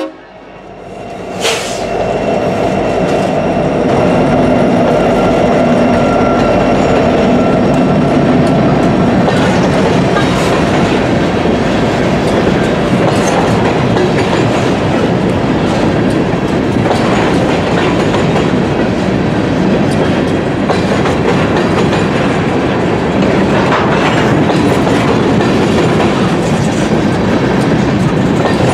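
Freight train of covered hoppers and tank cars rolling past close by: a steady heavy rumble with wheels clacking over the rail joints. A single sharp knock comes about a second and a half in, and a thin high ringing fades out around nine seconds in.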